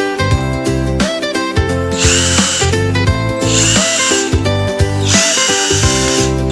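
A power drill-driver, most likely driving screws while the toy kitchen is assembled, runs in three short bursts of about a second each, the last one longer. Background music plays throughout.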